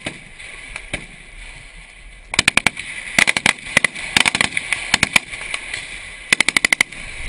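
Gunfire in a firefight: a single shot about a second in, then from about two seconds on several rapid bursts of automatic fire, one after another with short pauses between.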